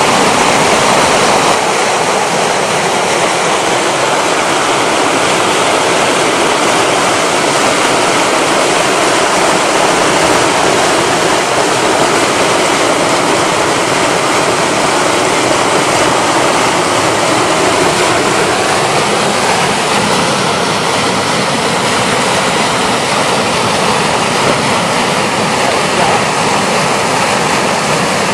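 White water pouring over a weir: a steady, loud rushing roar.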